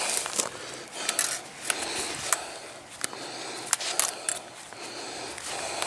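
Fence wire being worked by hand: irregular sharp metallic clicks and scraping as barbed and plain wire are pulled and wrapped.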